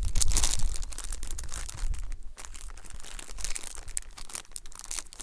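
Strong wind buffeting the microphone in uneven gusts, with crinkling and rustling from close handling.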